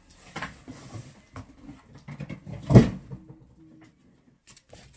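Packaging and a boxed appliance being handled: scattered knocks and rustles, with one heavy thump about three seconds in.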